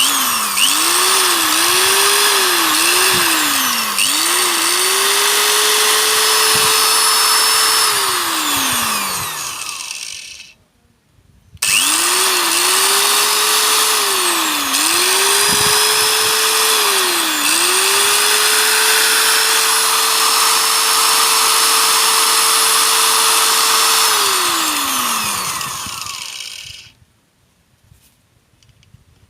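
SIM-100B 400-watt electric angle grinder switched on and off repeatedly: the motor whine climbs and dips with each short press, then holds a steady high pitch for several seconds before spinning down to a stop. This happens twice, with a brief pause between the runs.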